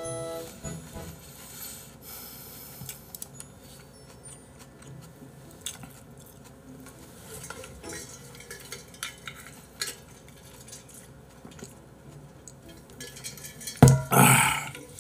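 Stainless steel vacuum bottle being handled: faint scattered clicks, then near the end a sudden loud knock followed by a short burst of noise about half a second long.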